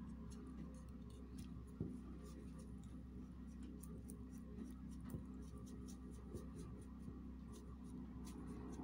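Small bristle brush sweeping loose glitter off painted wooden letters: faint scratchy brushing with many light ticks, one slightly sharper tick about two seconds in.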